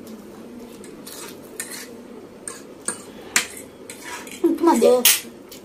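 Metal forks clinking and scraping against plates as noodles are picked up and eaten, with several sharp clicks spread a second or so apart. A short vocal sound comes near the end.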